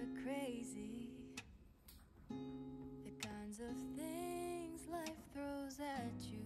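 Background music: an acoustic guitar song with a woman singing.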